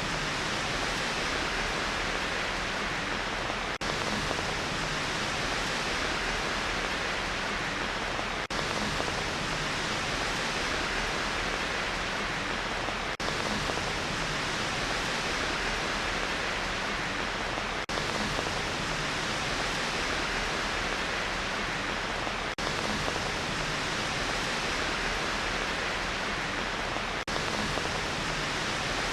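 Steady, even hiss of rain white noise, strongest in the upper-middle range, with a tiny brief dip about every five seconds.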